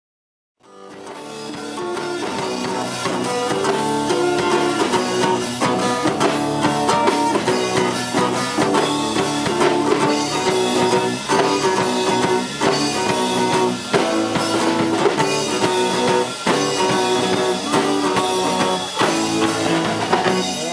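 Live rock band playing an instrumental passage on guitar, electric bass and drum kit, fading in from silence about half a second in.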